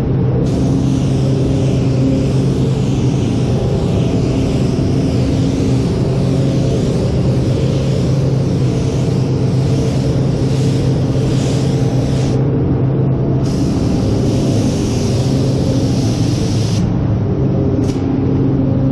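Gravity-feed spray gun hissing as it sprays basecoat onto car panels. The hiss cuts off for about a second partway through and again near the end as the trigger is released. A steady low hum runs underneath.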